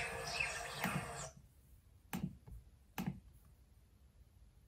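Music with chirping birdsong from a video playing on the laptop, cut off abruptly a little over a second in. Then two sharp, separate clicks from the laptop's touchpad being pressed.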